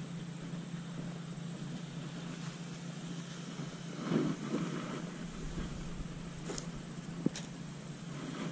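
Roadside traffic ambience: a steady low hum of passing cars, swelling louder about four seconds in, with one sharp click a little after seven seconds.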